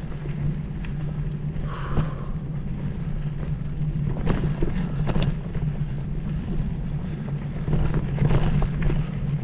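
A steady low engine hum, with a few sharp knocks or clicks over it.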